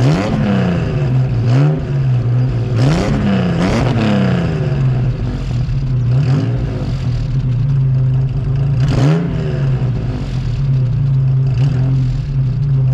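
Ford Capri 2600 RS's 2.6-litre V6 idling warm and revved in several short throttle blips, heard from behind at the exhaust. Four blips come in the first four seconds and another at about nine seconds, each a quick rise and fall in pitch before it settles back to a steady idle.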